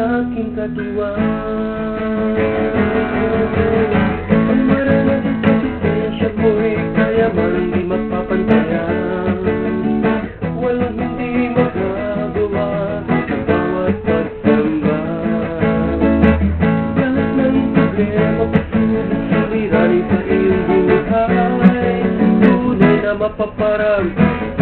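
Music: an instrumental passage of a Tagalog gospel song, led by acoustic guitar.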